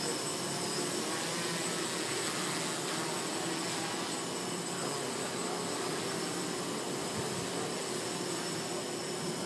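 Hexacopter's six electric motors and propellers buzzing steadily as it hovers and drifts overhead, an even hum with no change in level.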